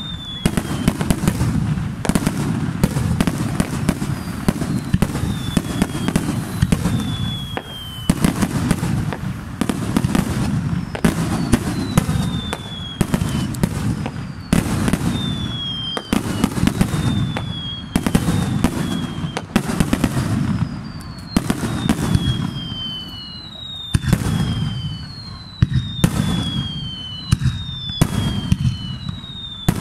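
Fireworks display: shells bursting in quick succession with sharp bangs and crackle over a continuous low rumble. Repeated high whistles fall in pitch, each lasting about a second, crowding together in the second half.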